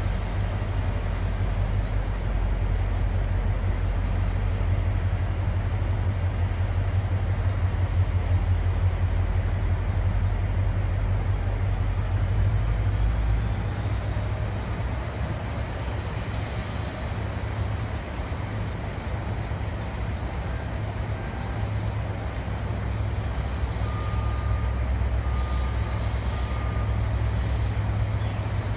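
WDG4 diesel-electric locomotive's 16-cylinder two-stroke EMD 710 engine running steadily while shunting a loaded mineral wagon rake. The low engine note shifts about thirteen seconds in, just after a high, thin whine rises in pitch and then holds.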